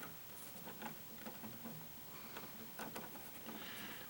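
Faint scattered clicks and rustling of insulated electrical wires being bent and straightened by hand in a wall switch box.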